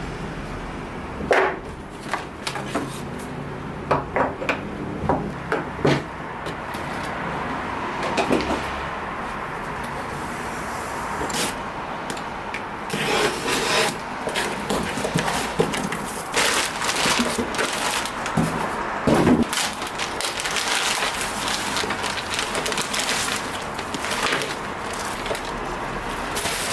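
Kitchen work sounds: irregular knocks and scraping of utensils on a wooden surface, over a steady hiss.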